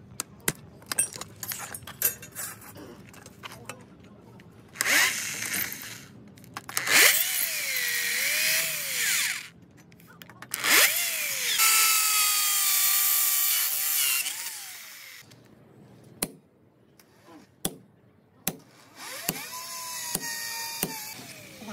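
Handheld electric drill boring through a flat steel strip in several runs, its whine rising and falling as the bit loads up in the metal. Between runs come sharp taps of a hammer on the steel.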